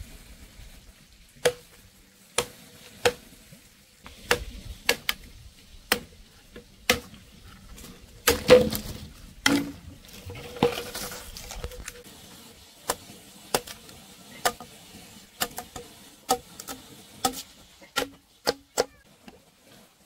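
Irregular sharp knocks, roughly one a second, several leaving a brief ringing note. A longer rustling, scraping stretch from about eight to twelve seconds in carries the loudest knock.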